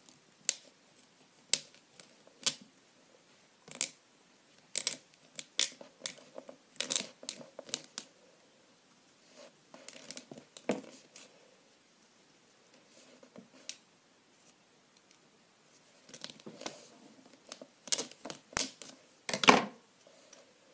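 Scissor tip scraping and clicking inside the plastic barrel of a mechanical pencil, clearing it out: a string of short, irregular scrapes with pauses, coming thicker near the end.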